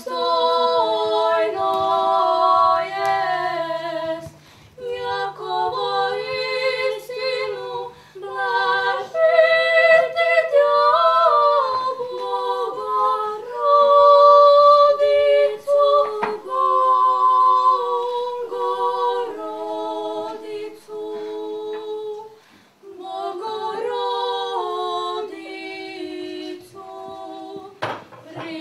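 Two young women singing unaccompanied in two-part harmony, phrase after phrase with short breaths between. A sharp knock sounds near the end.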